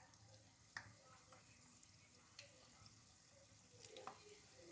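Faint sizzle of chebakia dough shapes deep-frying in hot oil, with three faint clicks spread across it.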